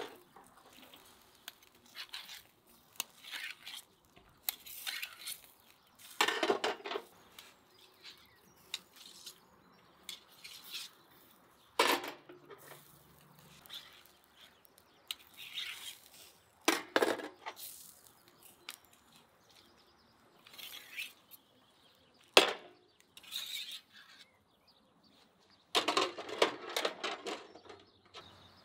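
Cooking utensils and dishes knocking, clinking and scraping now and then, in short separate bursts every few seconds with a longer clatter near the end.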